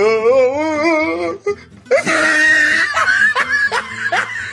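Comic music and laughter sound effects: a long wavering held note, then a bright musical burst, then a run of quick falling laughs.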